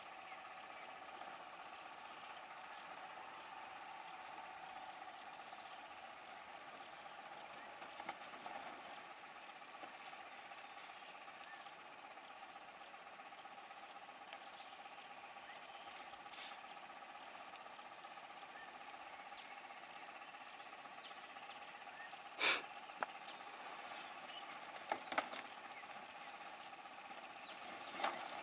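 Insects, crickets by their sound, chirping in a steady high-pitched pulse, about three pulses a second, over a steady lower hum. A sharp click sounds about 22 seconds in.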